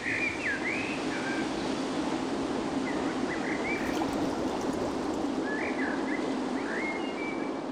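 Steady rush of water, like surf, with a songbird's short chirping calls in three brief bursts: at the start, about three seconds in, and again near the end.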